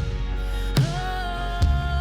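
Worship band music between sung lines: sustained chords over a bass line, with three drum hits just under a second apart.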